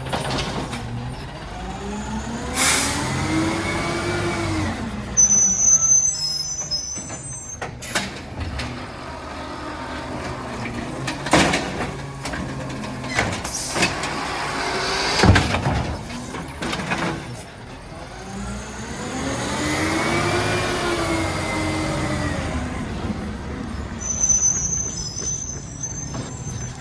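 Garbage truck at work: its engine revs up and falls back twice, with sharp air-brake hisses and several bangs in between, and brief high squeals.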